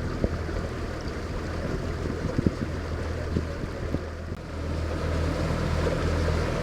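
Motorboat running across a lake: a steady low engine drone under wind and water noise, with a few short knocks, growing a little louder in the second half.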